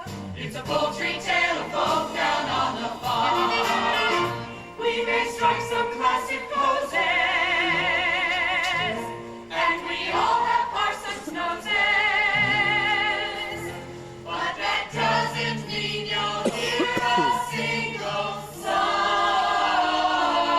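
Stage-musical cast singing as an ensemble over instrumental accompaniment, holding several long notes with vibrato.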